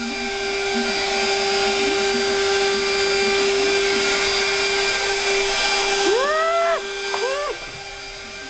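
Vacuum cleaner running steadily with a constant motor whine over a rushing hiss. It gets quieter about seven seconds in. Two short, high cries that rise and fall come just before that.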